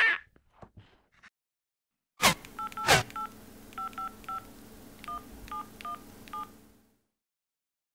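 Samsung flip phone being dialled: two sharp clicks, then about ten keypresses, each giving a short two-tone dial beep, over a steady low hum. It all stops about seven seconds in.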